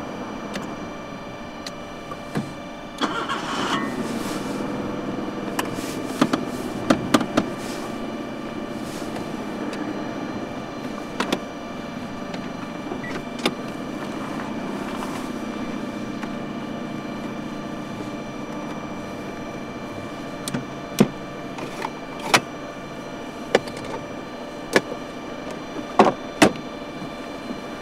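Small clicks and knocks inside a 1992 Nissan March as its switches, stalks and dashboard parts are handled, with a low hum through the first half.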